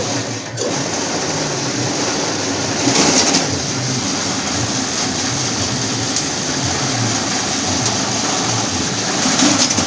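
Satay-skewer making machine running, producing four round bamboo sticks at a time: a steady mechanical noise over a low motor hum, a little louder about three seconds in and again near the end.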